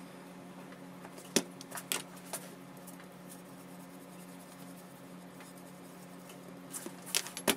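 A steady low hum with a few light clicks and taps from glue-up work as wood glue is spread with a small brush along a wooden inlay strip. The clicks come in a handful in the first few seconds and in a small cluster near the end.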